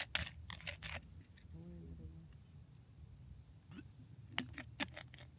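Faint insect chirping, a regular high pulse a little over twice a second, with a few soft clicks and rustles.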